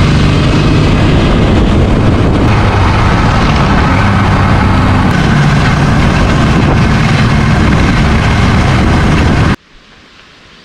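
1979 Suzuki GS750's inline-four engine running loudly under way, with a rushing hiss over it. The sound cuts off abruptly about a second before the end.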